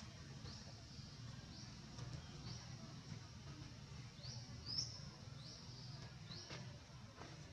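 A bird chirping over and over: short, high, upward-sliding chirps about once a second, one louder just before the middle, over a faint steady low rumble.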